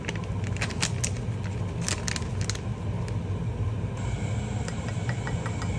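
Foil seasoning sachet crinkling and rustling as spice powder is shaken out into a ceramic ramekin, with sharp crackles in the first couple of seconds, over a steady low hum.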